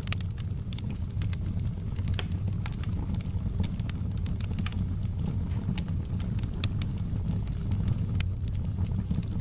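Wood fire burning in a fireplace: frequent, irregular sharp crackles and pops over a steady low rumble of flames.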